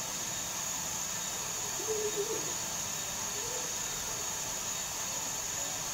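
Steady high hiss, with faint distant voices briefly about two seconds in.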